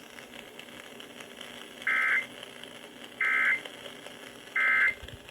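Emergency Alert System end-of-message code played over a radio: three short, identical bursts of warbling two-tone data, about a second and a half apart, against low hiss. They mark the end of the warning broadcast.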